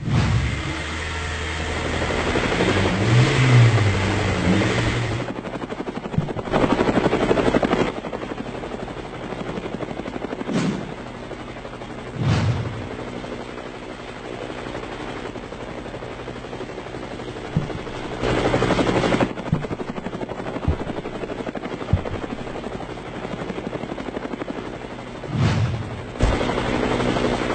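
Steady aircraft engine noise, broken by two longer, louder swells and a few short low thuds.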